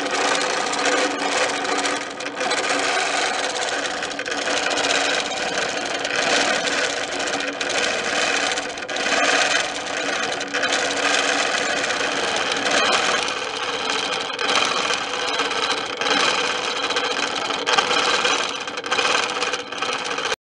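Innova 22-inch longarm quilting machine running and stitching continuously, a steady rapid mechanical run whose loudness swells and dips as the sewing speed changes.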